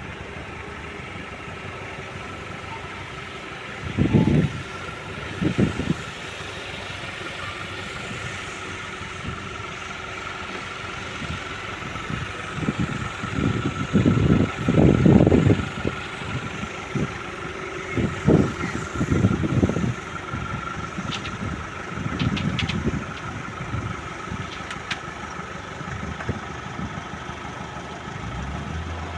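An engine running steadily with a constant whine, broken by irregular louder low rumbles every few seconds.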